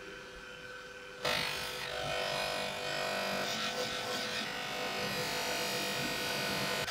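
Bench polishing motor running with its polishing wheel spinning. About a second in, a steel vise part is pressed against the wheel and a rubbing noise of metal being buffed starts and carries on.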